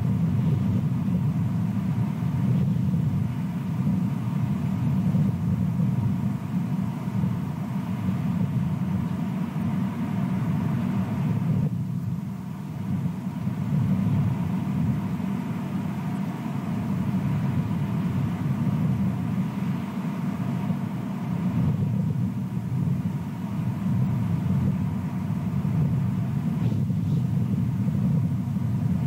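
Steady low rumbling noise with no clear pitch, dipping briefly about twelve seconds in.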